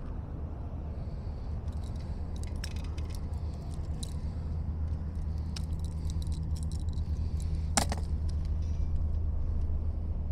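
A hooked bass being brought to a kayak and lifted aboard: scattered clicks and rattles of tackle and handling, with one sharp knock about eight seconds in, over a steady low hum.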